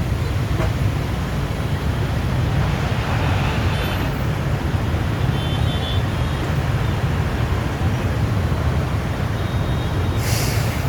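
Steady low outdoor rumble with no distinct events, and a brief hiss near the end.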